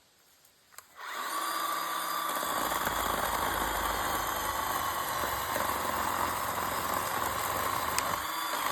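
Side-by-side utility vehicle's engine running steadily, coming in suddenly about a second in, with a deeper rumble joining a second or so later.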